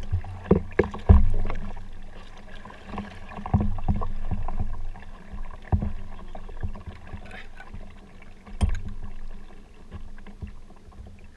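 Folding kayak out on the water: paddle splashes with irregular knocks and thumps against the hull.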